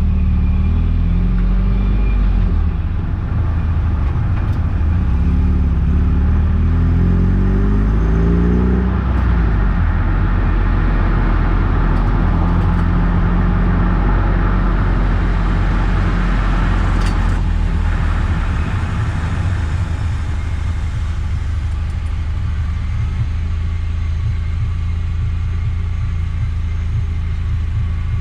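Eunos Roadster on the move, its four-cylinder engine running under road noise, with the engine pitch shifting up and down in the first several seconds and then settling into a steadier drone.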